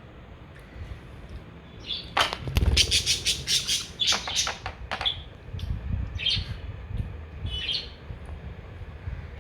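Budgies chirping: a dense, loud run of sharp chirps about two seconds in lasting some three seconds, then a few short separate calls.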